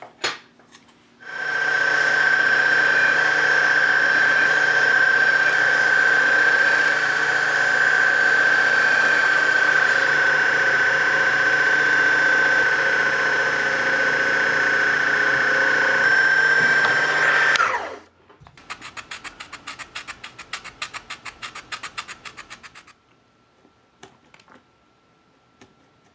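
Small electric drill running at a steady speed with a single high tone for about sixteen seconds, its tapered bit boring holes in a thin wooden model-ship platform, then spinning down. It is followed by a few seconds of quick scraping strokes from hand-working the wood.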